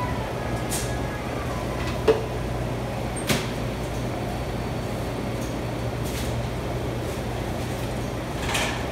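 Coffee shop ambience behind the counter: a steady low hum with the clatter of baristas working, including two sharp knocks about two and three seconds in.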